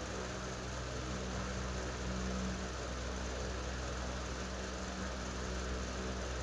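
A steady low mechanical hum over an even hiss, like a running motor or fan.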